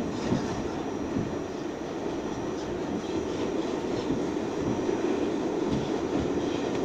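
R68A subway train running at speed through a tunnel, heard from inside the car: a steady rumble of wheels on rails with a few faint clicks.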